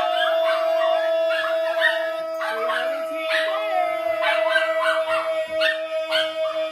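A man and a woman singing together: one long steady note is held on a single pitch while shorter sung syllables move above it.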